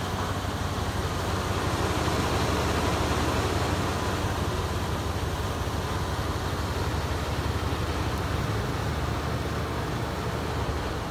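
Ford F-150 pickup engine idling, a steady low drone.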